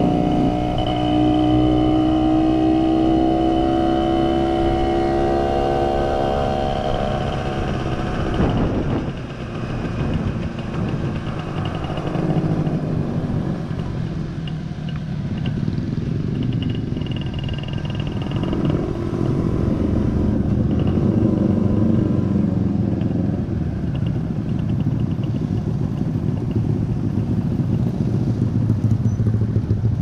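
A small motorcycle engine running while on the move, with road and wind noise. For the first eight seconds it holds a steady engine note; this breaks off sharply just before nine seconds in and gives way to a rougher, lower rumble.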